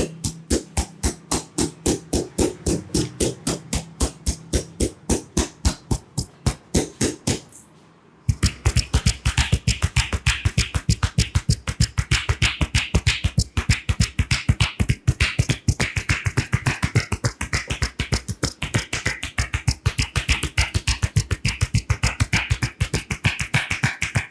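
Barber's hands striking in a rhythmic tapping and chopping massage, about three to four strokes a second. The strokes stop abruptly about eight seconds in, then resume faster at about seven a second.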